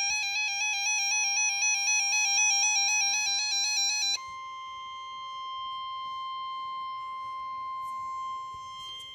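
Weather radio alert: a rapid warbling two-tone alarm beep for about four seconds, which stops abruptly and leaves the steady NOAA Weather Radio warning tone (about 1050 Hz) sounding alone, signalling a tornado warning broadcast about to begin.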